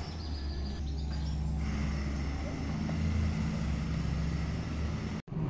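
Kia Niro hybrid pulling away and driving slowly off down the street: a low steady rumble that cuts off abruptly near the end.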